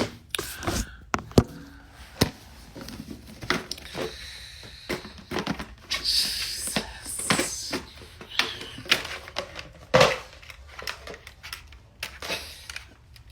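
Irregular clicks, taps and rustles of things being handled close to the microphone, with a longer rustling stretch about halfway through.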